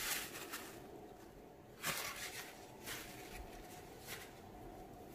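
Paper towel rubbing across a quartz worktop, fading out within the first second, followed by a few faint, brief scuffs.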